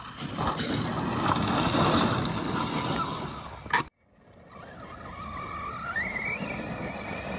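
Large brushless electric RC monster trucks running on loose gravel: tyres churning and spraying stones with motor noise. After a brief break a little before four seconds in, a motor whine rises in pitch as a truck accelerates.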